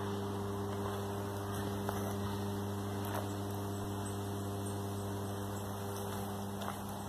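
A steady low electrical-sounding hum with a few even overtones, like mains hum, with a few faint scattered ticks.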